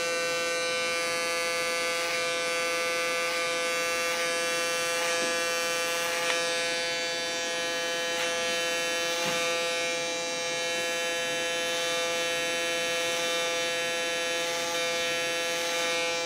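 Electric hair clipper running with a steady buzz as it cuts hair held against a comb, with a few faint brief rasps as the blade bites.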